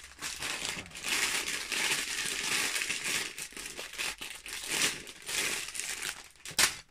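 Plastic LEGO polybags full of bricks crinkling and rustling as they are handled and turned over. A sharp knock comes near the end.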